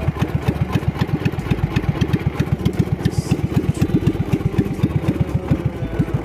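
Small boat's engine idling with a quick, even chugging beat.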